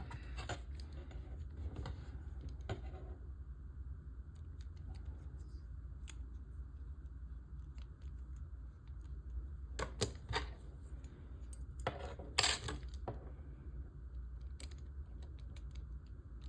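Scattered light clicks and metallic clinks of small tools and parts being handled, a few bunched about ten and twelve seconds in, over a steady low hum.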